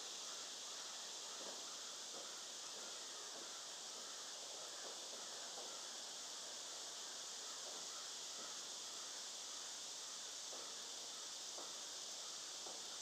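Steady high-pitched drone of insects in chorus, unchanging throughout. Faint, irregular little scrapes and ticks of a small carving gouge cutting into the wooden cane stem sit beneath it.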